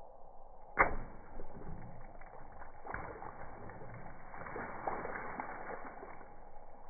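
A water balloon popped with a pin: one sharp pop about a second in, then water splashing down over an upturned plastic bucket for several seconds, in several surges, heard slowed down in slow motion.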